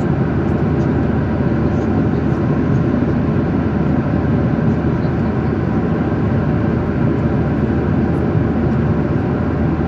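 Steady airliner cabin noise: a constant, even drone of the jet engines, heard from inside the passenger cabin.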